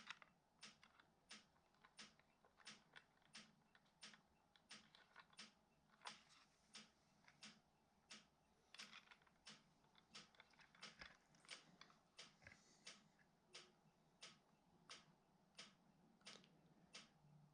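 Near silence broken by faint small clicks, about two or three a second.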